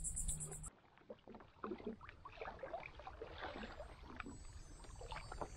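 Faint, irregular small splashes and trickles of water around a fishing paddleboard on the water.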